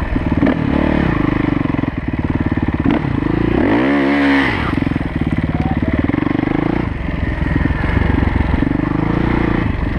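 Kawasaki KX450F dirt bike's single-cylinder four-stroke engine running while being ridden, the throttle worked on and off, with one sharp rev rising and falling about four seconds in.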